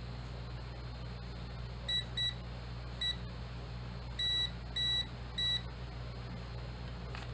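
AstroAI DM6000AR digital multimeter's continuity buzzer beeping six times, a steady high tone in short and slightly longer beeps. Each beep shows that the test probes are making contact through the wire under test.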